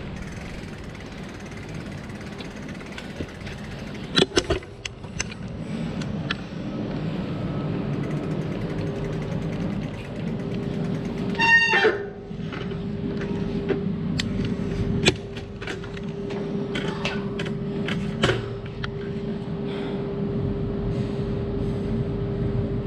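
Clicks and clanks of a bicycle being ridden up to, then wheeled through, a stainless steel gate, with a brief high squeal about halfway through. A steady low hum runs under the clatter after that.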